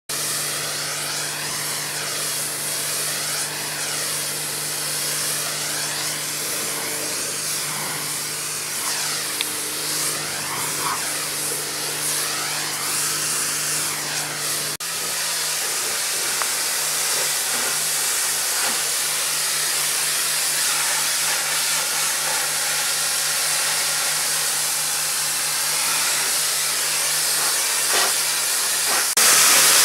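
Electric pressure washer's high-pressure water spray hissing steadily against a motorhome's side and windshield, with a steady low hum underneath. The sound changes abruptly about halfway through and gets louder near the end.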